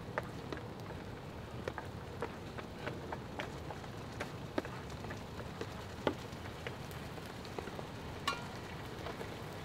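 Small wood fire in a firebox stove crackling, with cardboard burning in it: irregular light ticks and pops, several a second, over a steady low hiss.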